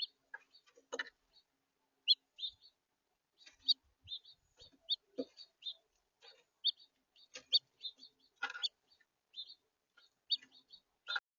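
House finches chirping: short, high chirps scattered irregularly, with a few harsher, fuller notes among them.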